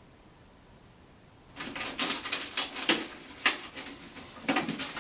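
Thin, wrinkled titanium-foil stovepipe crinkling and crackling as it is handled, a quick run of sharp rustles and clicks that starts about one and a half seconds in.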